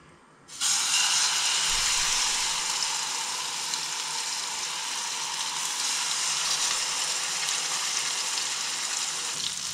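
Marinated king fish slices sizzling in hot oil in a frying pan: the sizzle starts suddenly about half a second in as the first slice goes into the oil, then runs on steadily.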